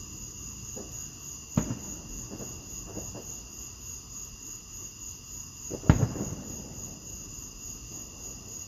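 Crickets chirping steadily, with fireworks going off: a sharp boom about a second and a half in, a louder one about six seconds in, each trailing off in a rumble, and a few fainter pops between.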